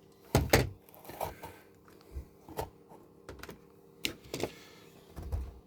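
Irregular plastic clicks and knocks from a Scalextric AC Cobra slot car running at low throttle on the track, loudest about half a second in, over a faint steady hum.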